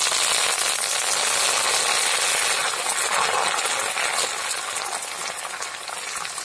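Hot oil in a metal wok sizzling and crackling loudly as fresh green leaves fry with dried red chillies, stirred with a metal spatula. The sizzle eases a little near the end.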